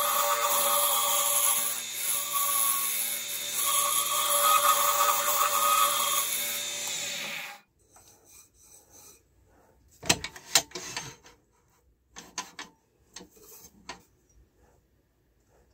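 Wood lathe running with a steady motor hum while a turning tool scrapes and cuts a burl wood pen blank, the cutting noise rising and falling with each pass. The lathe stops suddenly about halfway through, leaving faint scattered knocks and rubs of hands brushing off shavings and handling the metal tool rest.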